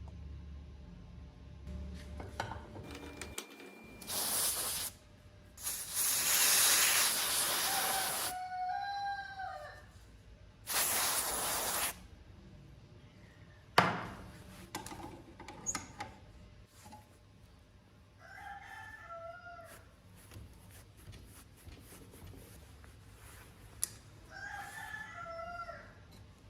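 A rooster crowing three times, between three loud bursts of hissing noise and a sharp knock about 14 seconds in.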